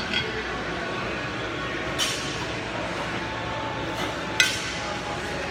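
Pair of 8 kg kettlebells clinking during repeated double jerks: three sharp metallic clinks about two seconds apart, the last the loudest, over a steady background hum.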